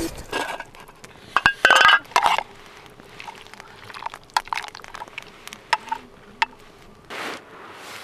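A metal spoon clinking and scraping in a metal mess tin of stew while scooping up broth. There is a quick cluster of ringing clinks about one and a half to two seconds in, then lighter scattered clicks.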